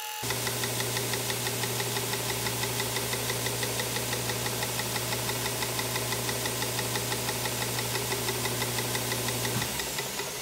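Edge sander running, a steady motor hum with an even rhythmic beat from the moving belt. A little before the end it is switched off and winds down, its pitch falling as the sound fades.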